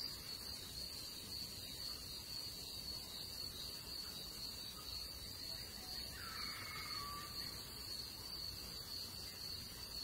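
Steady high-pitched insect chorus, like crickets trilling without a break, with one faint falling whistle about six seconds in.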